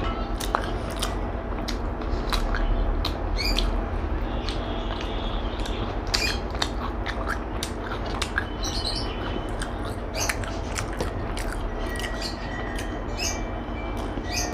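Close-miked eating sounds: a person chewing, with many short wet mouth clicks and smacks scattered throughout, over a steady low hum.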